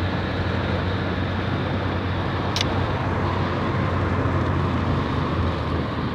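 Steady road noise heard inside a moving car's cabin: tyre and engine drone with a low hum. There is one short sharp click about two and a half seconds in.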